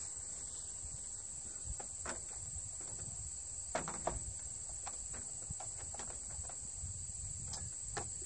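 Insects, such as crickets, chirring steadily at a high pitch outdoors, with a few soft clicks and knocks, the clearest about four seconds in.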